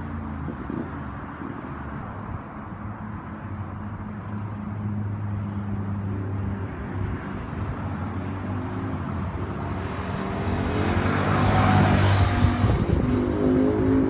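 Naza Blade (Hyosung) V-twin sport motorcycle running as it approaches and passes by. Its engine note grows louder and is loudest about twelve seconds in as the bike goes past close.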